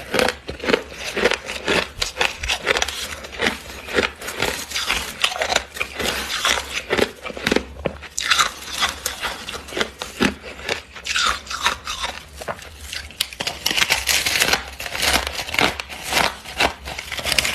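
Freezer frost being bitten and chewed close to the microphone: a constant run of crisp, irregular crunches and crackles.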